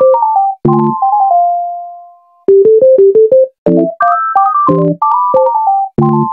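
Background music: an electronic keyboard melody of short stepping notes over low chord stabs, a bouncy phrase that repeats, with a held note fading away about two seconds in.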